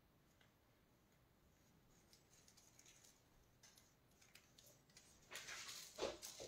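Mostly near silence, then faint rustling and crinkling from about two seconds in, louder near the end: sheets of thin metal leaf being handled and pressed onto a sticky surface.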